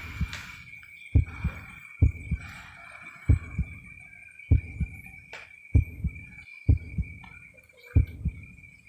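Heartbeat sound effect: a slow, regular double thump (lub-dub), about eight beats roughly 1.2 seconds apart. A steady high-pitched whine runs underneath.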